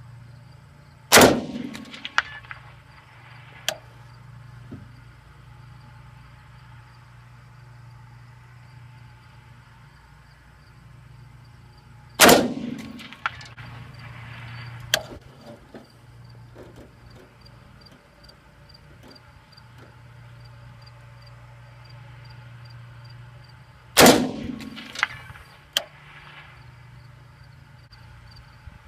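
Three single shots from an AR-15 rifle firing 5.56 mm XM193 ammunition, about 11 seconds apart, each a sharp crack followed by a few light metallic clinks of the spent brass casing landing.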